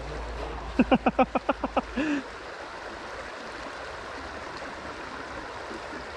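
Trout stream running steadily. About a second in, a quick string of about nine short pitched sounds ends in one longer one.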